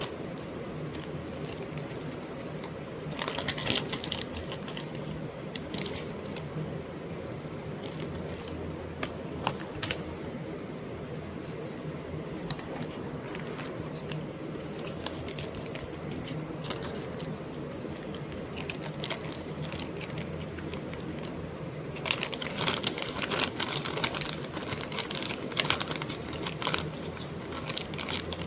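Scattered clicks and crinkling over a steady low hum, busier for a moment a few seconds in and again through the last six seconds.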